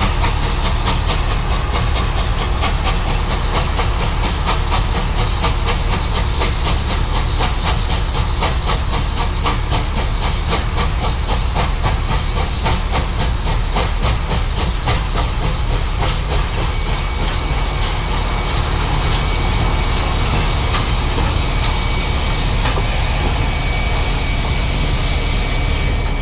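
Baldwin 2-8-2 steam locomotive moving slowly, with hissing steam over a rapid, even clatter. A faint steady high tone joins in about two-thirds of the way through.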